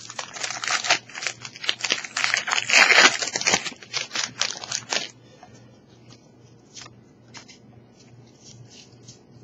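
Foil Pokémon Plasma Storm booster pack wrapper being torn open and crinkled in the hands, loudest about three seconds in and stopping after about five seconds. Then only faint light ticks and rustles.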